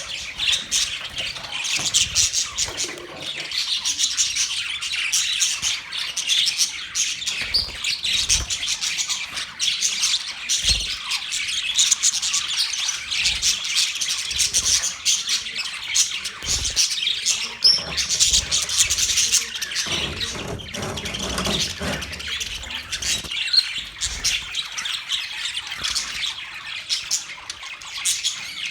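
A group of budgerigars chirping and chattering without pause, many short high chirps and squawks overlapping.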